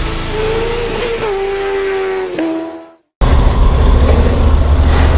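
Background music fades out; after a brief silent break it cuts to loud on-board motorcycle riding noise, a steady low rumble of wind on the microphone and engine.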